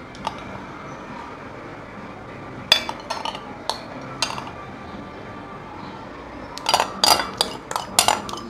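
Metal spoon clinking and scraping against glassware as thick custard is scooped from a glass bowl and spooned into serving glasses. There are a few scattered clinks a few seconds in, then a quicker run of clinks near the end.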